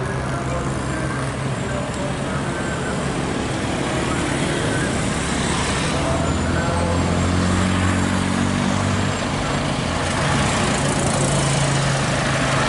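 Scania R580's V8 diesel engine running under load as the truck, hauling a heavy articulated dump truck on a trailer, drives up and past, growing gradually louder as it nears.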